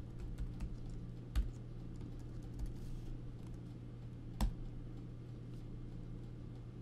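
Typing on a computer keyboard: a sparse run of key clicks, two of them louder, about a second and a half in and again three seconds later, over a steady low hum.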